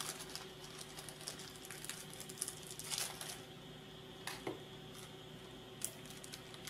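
Faint clicking and light rustling of tiny M2x8 metal bolts being picked out of a small plastic parts bag and handled between the fingers. There are a few sharper clicks in the middle and near the end, over a steady low hum.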